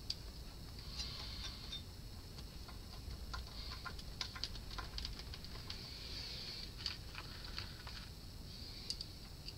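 Small, irregular metallic clicks and taps of a screwdriver and fingers working the mounting screws of TO-3 power transistors on an amplifier's output-stage heatsink, thinning out near the end.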